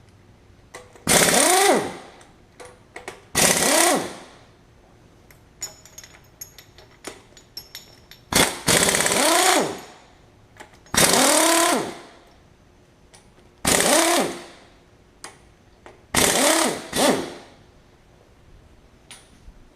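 Impact wrench loosening bolts in six separate bursts of about a second each, its motor pitch rising and then falling off as the trigger is released. There are small clicks and knocks between the bursts.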